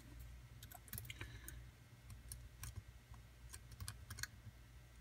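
Faint, irregular small clicks of a lock pick working the pins inside a lock cylinder, with a tension wrench in the keyway.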